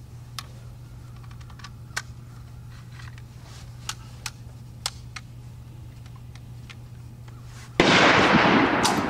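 A single 12-gauge shotgun shot from a Charles Daly N4S semi-automatic, loud and sudden near the end and then slowly fading. Before it come several faint, sharp cracks of distant gunfire.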